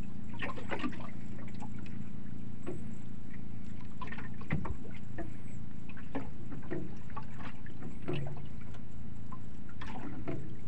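Water lapping and splashing against the hull of a small boat at sea, in short irregular slaps, over a steady low hum.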